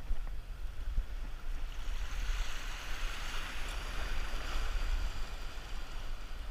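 Water splashing and rushing along the hull of a small boat moving across the sea, swelling for a few seconds in the middle, over a steady low rumble of wind on the microphone.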